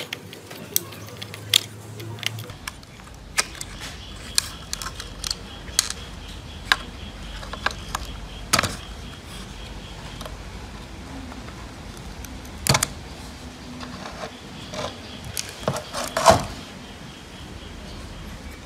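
Irregular small clicks and taps of a screwdriver on screws, plastic wire connectors and a circuit board as the board is unscrewed and taken out of a security camera's plastic housing, with a louder knock about 16 seconds in.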